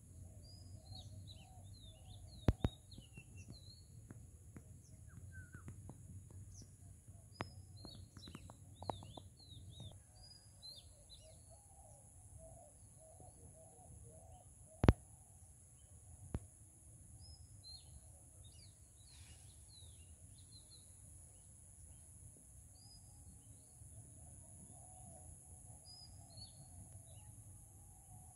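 Small birds chirping and twittering in short scattered calls over a steady high hiss and a low rumble. Several sharp clicks break in, the loudest about halfway through.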